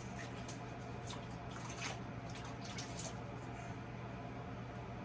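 Water dripping and splashing in small irregular spatters around a micro sluice's recirculating water setup, over a steady low hum.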